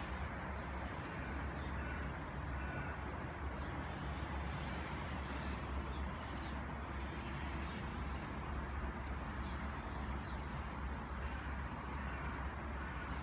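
Outdoor ambience: a steady low rumble, with small birds chirping now and then in short, high chirps scattered throughout.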